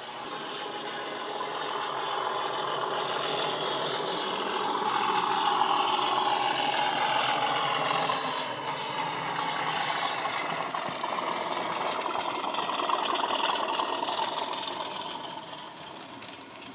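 A model Class 37/0 locomotive's LokSound DCC sound decoder playing an English Electric diesel engine sound through the model's small speaker, with the model's wheels rattling on the track. The sound builds over the first few seconds, stays loud as the locomotive passes close, then fades near the end.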